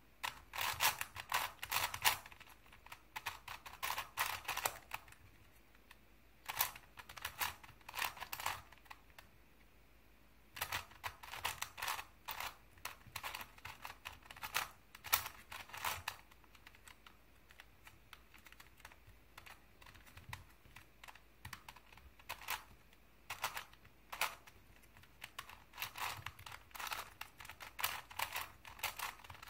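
Crazy 3x3 Plus Mars puzzle cube being turned by hand: quick runs of plastic clicking and clacking as its layers turn, broken by short pauses.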